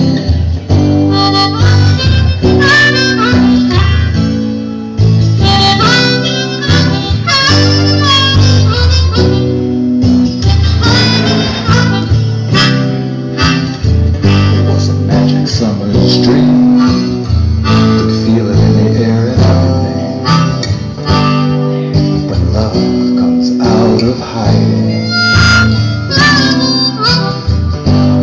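Harmonica playing a solo over a strummed acoustic guitar in a live instrumental break, with no singing.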